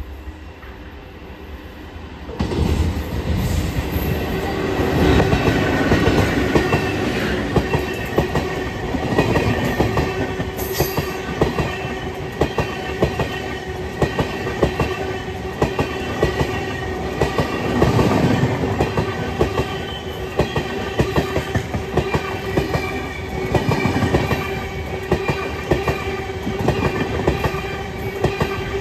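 Indian Railways passenger train of AC coaches passing close at speed. The sound jumps up sharply about two seconds in as the locomotive arrives, then runs on as a steady rush of wheels on rail, with repeated clattering from the wheels as the coaches go by.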